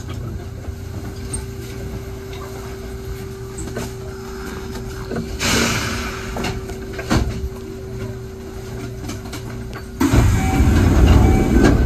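Cab of a Kintetsu 1021 series electric train standing at the terminus: a steady electrical hum, a short hiss of air about halfway through with a few clicks, then a louder rush of air with rumbling starting near the end.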